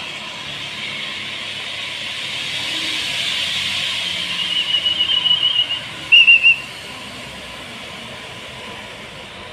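A trilling pea whistle blown in short pulses, ending in three quick loud blasts about six seconds in, over a steady hiss.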